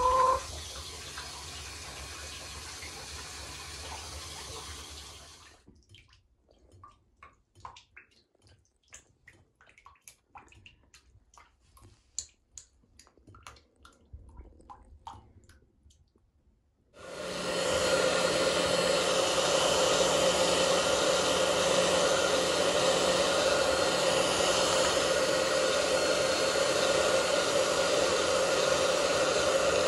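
Tap water running into a sink, then a quiet stretch of small drips and splashes in shallow bathwater. About halfway through, a hand-held hair dryer starts abruptly and runs steadily.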